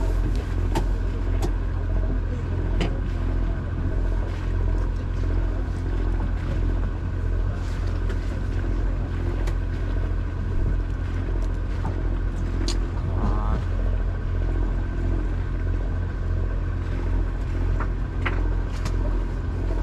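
Party boat's engine running steadily: a low rumble with a faint constant whine above it. A few light clicks are scattered through it.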